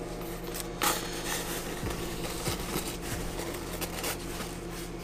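Rustling and crinkling of packing material as a snake shipping box and bag are handled and opened, with one sharp knock about a second in. A steady low hum runs underneath.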